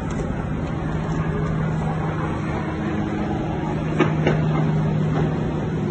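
Steady machinery drone with a constant low hum, like a running engine, over a background rumble, with two short knocks about four seconds in.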